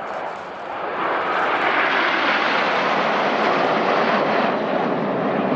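Jet noise from a formation of nine BAE Hawk T1 jet trainers flying past, swelling about a second in and then holding loud and steady as a broad rushing sound.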